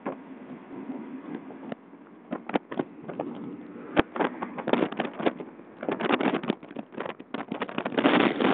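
Outboard motor running at speed, heard from the boat, under heavy wind buffeting and crackle on the microphone that grows louder near the end.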